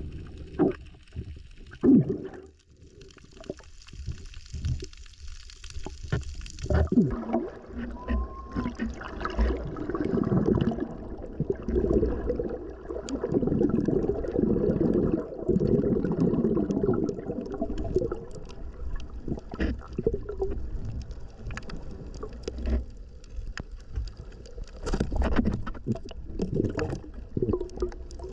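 Muffled underwater bubbling and gurgling heard through a submerged camera, with scattered knocks and clicks. It is quieter for a few seconds near the start and grows fuller about seven seconds in.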